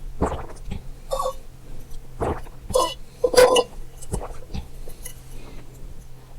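Someone drinking water close to the microphone: a string of separate gulps and swallows, with light clinks of a glass, the loudest gulp about three and a half seconds in.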